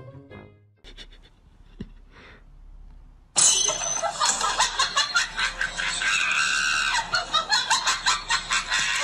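A person laughing and shrieking loudly, starting suddenly about a third of the way in, after music stops within the first second and a quiet stretch follows.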